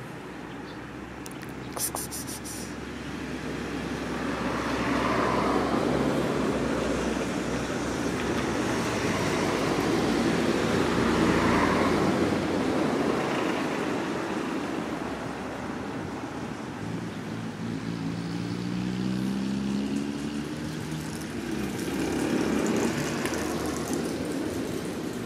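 Road traffic passing: vehicles go by one after another in slow swells of noise, and near the end one engine rises steadily in pitch.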